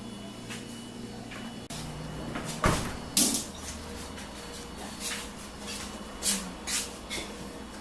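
Knocks and clacks of a Brastemp 12-place dishwasher being handled: a loud knock a little under three seconds in, a second soon after, then several lighter clacks, over a steady hum.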